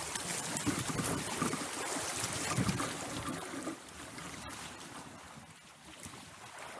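Shallow river water rushing and splashing over stones around a kayak, fading to a quieter flow after a few seconds as the boat leaves the riffle for calmer water.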